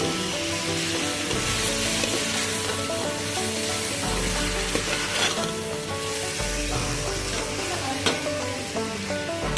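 Pumpkin and zucchini pieces sizzling as they fry in a pot, with a spoon stirring and scraping through them.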